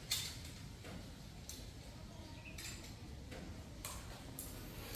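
Quiet background noise with a few faint, separate clicks or taps.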